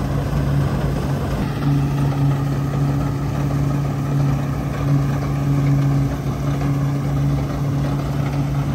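Combine harvester running steadily under load, a constant engine hum with machinery noise that grows a little louder about two seconds in.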